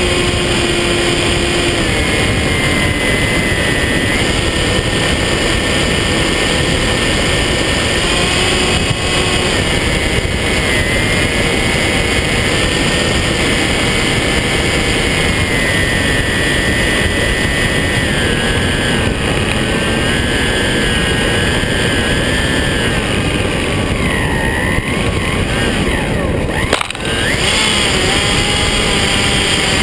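Electric motor and propeller of a foam FPV model airplane, heard through the onboard camera under heavy wind rush, its whine stepping up and down in pitch with the throttle. Near the end the whine bends and glides, and the sound dips briefly before steadying again.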